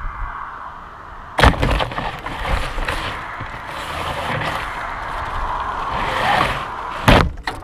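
A balloon-borne payload capsule strikes tree branches with a sharp knock about a second and a half in. Leaves and twigs then scrape and rustle against it, and a second sharp knock comes near the end.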